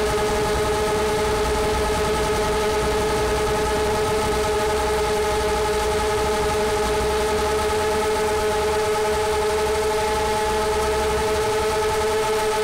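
FPV quadcopter's brushless motors and propellers in flight: a steady whine of several held tones that does not change, over a low wind rumble on the onboard camera's microphone.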